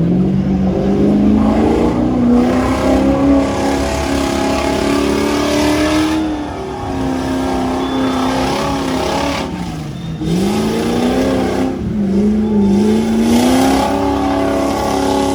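Off-road 4x4 engines revving hard under load. The pitch climbs over the first few seconds and holds, then drops sharply about ten seconds in and climbs again.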